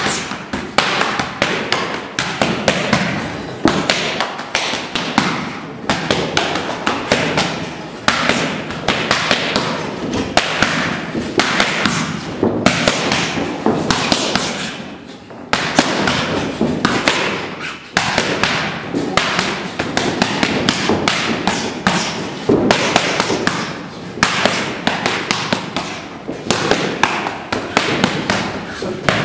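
Boxing gloves striking focus mitts, sharp smacks in quick flurries of punches with short breaks between.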